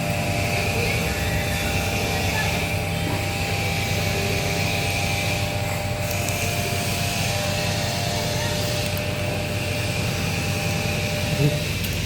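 A steady mechanical hum from a running machine or motor, holding an even pitch throughout, with a single short knock near the end.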